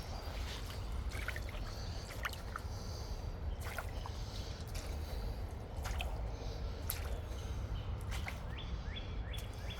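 Boots squelching and splashing through soft, deep mud and shallow water in scattered steps, over a steady low rumble. Near the end a bird gives a quick run of four falling chirps.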